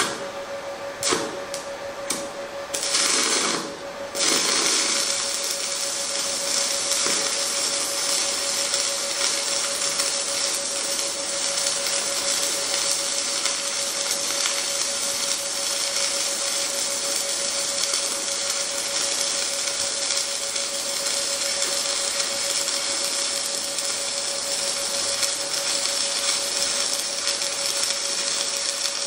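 Stick welding with 3/32-inch 6010 rod (Lincoln Fleetweld 5P) at 70 amps on a Lincoln Square Wave TIG 205: a few short, stumbling strikes in the first four seconds as the hard-to-start rod catches, then the arc runs steadily to the end.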